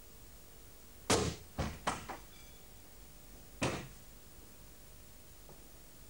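A series of sharp bangs with short tails. A loud one comes about a second in, three quicker ones follow within the next second, and one more comes about two and a half seconds later.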